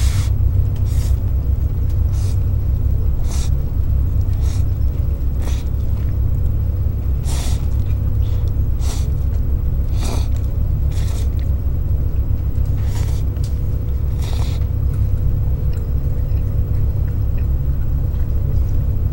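Deep, steady rumble of a high-speed catamaran ferry's engines heard inside the passenger cabin. Over it come short, irregular slurps of cup noodles being eaten with chopsticks, about one every second or two.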